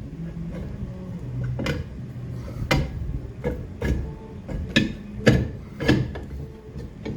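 Several sharp, irregular clicks and knocks of hand work on a car's rear drum brake and automatic handbrake adjuster, coming closer together in the second half.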